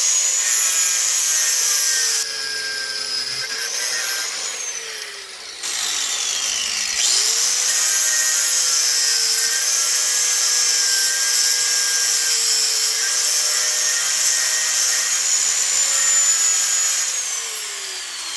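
Angle grinder cutting through a rusty bolt, a loud high whine whose pitch sags and recovers as the disc bites the metal. About six seconds in it briefly slows and picks back up, and near the end it winds down.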